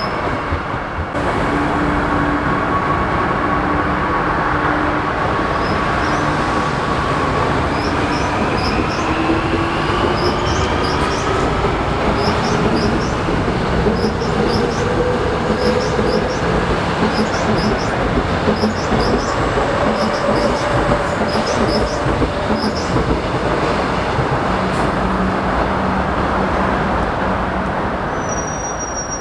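Seoul Metro Line 2 electric train pulling out, its traction motor whine rising in pitch as it gathers speed over the wheel and rail noise. Short high squeals from the wheels repeat through the middle, and the noise eases off near the end.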